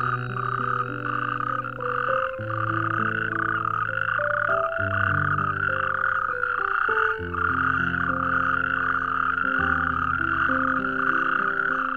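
Toads calling in a continuous, steady pulsing trill, over background music of slow sustained notes.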